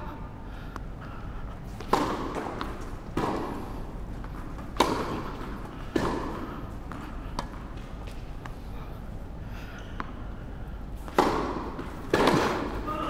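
Tennis balls being struck by rackets and bouncing on an indoor hard court: a string of sharp pops, one every second or two with a longer gap in the middle, each echoing in the large hall.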